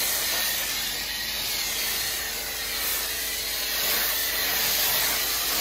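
Chemical Guys foam cannon on a Ryobi electric pressure washer spraying soap foam onto a car's body panels, a steady loud hiss of spray that eases slightly midway.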